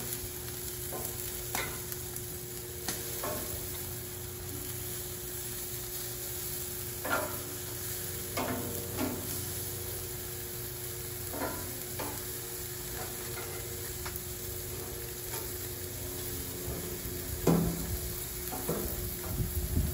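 Chicken drumsticks sizzling on a hot gas grill's grates as metal tongs turn them, with scattered clicks and scrapes of the tongs against the grate. The loudest clacks come near the end.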